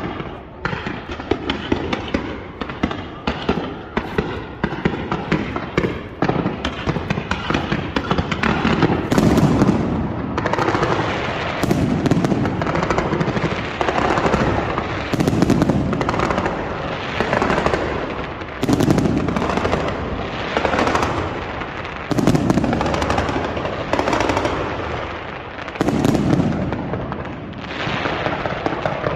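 Aerial fireworks display. For the first eight seconds or so there is a dense run of rapid pops and crackles. After that come loud bangs about every two seconds, with crackling between them.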